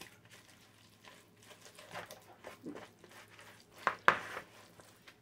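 Wooden spoon stirring a soft ricotta and parmesan cheese mixture in a mixing bowl: quiet, irregular scraping strokes, with a louder scrape or knock of the spoon against the bowl about four seconds in.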